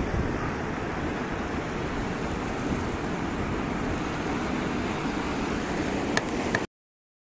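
Steady rushing noise of tsunami water surging through a harbour and spilling over a concrete quay wall, mixed with a low rumble of wind on the microphone. It cuts off abruptly near the end, just after two faint clicks.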